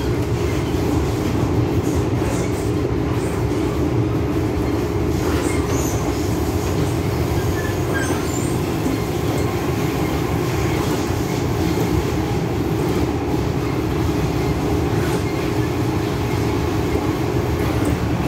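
Metro-Cammell DC electric multiple unit train heard from inside the car while running at speed. Its wheels and motors make a steady, unbroken rumble.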